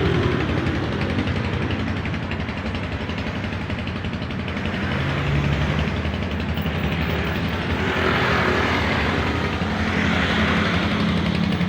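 Large diesel bus engine running close by with a steady, loud note that shifts in pitch as the engine speed changes.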